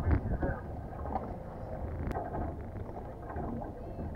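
Wind buffeting the microphone and water moving against the hull of a small motorboat lying still on open sea. Faint voices carry from the boats around it.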